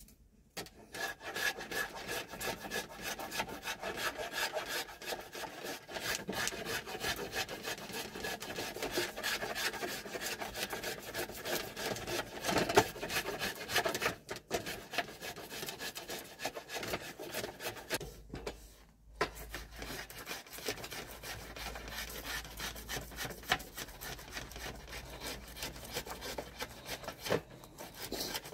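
A hand blade scraping along a wooden hiking stick in rapid repeated strokes, shaving off bark and wood. It pauses briefly about halfway through and again a few seconds later.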